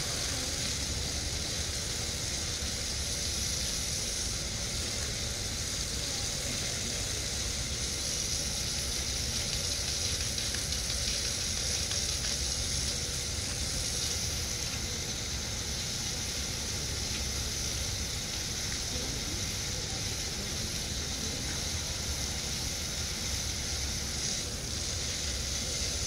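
Steady hiss of small ocean waves washing and fizzing on the beach, with a low rumble underneath.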